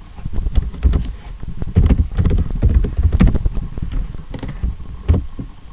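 Computer keyboard and mouse being used: irregular taps and clicks with dull thumps, as text is selected and copied and Notepad is opened.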